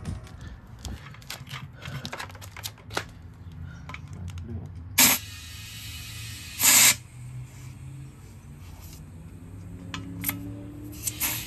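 Two short bursts of hissing gas, about a second and a half apart, the second one longer, over light clicks and handling knocks, during work on seating a tire's bead on its rim.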